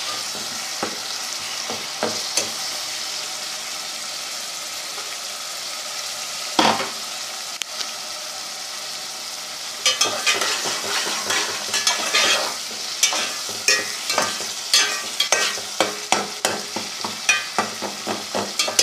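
Chopped tomatoes sizzling in hot oil with browned onion and garlic in a metal pot while a metal spoon stirs, scraping and knocking against the pot. One loud knock comes about a third of the way in, then quick repeated scraping strokes run through the second half.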